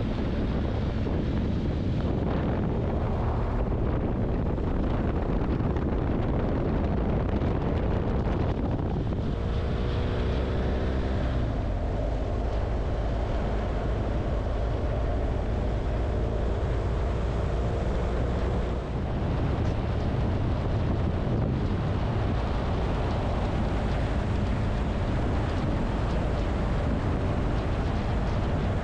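Car driving along an open road: steady tyre, road and engine noise with wind buffeting the microphone. A faint engine note shifts in pitch for several seconds in the middle.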